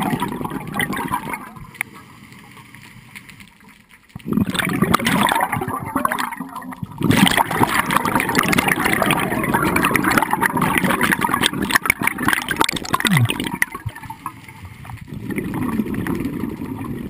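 Underwater sound of a scuba diver's regulator releasing exhaust bubbles: a loud, gurgling rush of bubbles that drops away twice, near the start and about two-thirds of the way through, as the diver breathes in.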